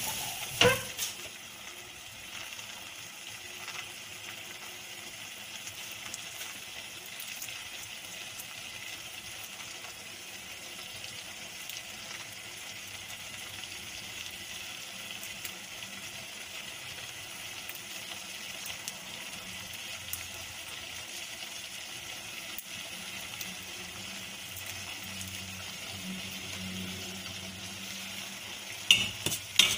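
Crumbled curdled-milk solids sizzling gently in a steel pan as they cook down for milk kova, a steady soft hiss. A spoon knocks against the pan once just under a second in, and near the end the spoon clinks and scrapes against the pan in quick strokes as stirring begins.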